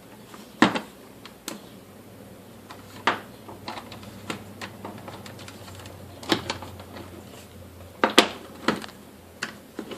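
Scattered clicks and knocks of an Arrow ET2025 electric stapler's casing and parts being handled and fitted back together. A sharp knock comes just under a second in, and a cluster of louder ones about eight seconds in.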